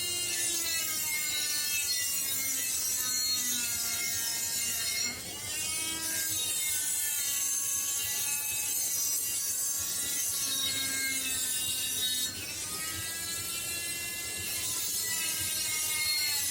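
Electric rotary tool working the steel of an axe head. Its motor whine wavers up and down in pitch as the bit is pressed in and eased off. There are abrupt changes about five and twelve seconds in.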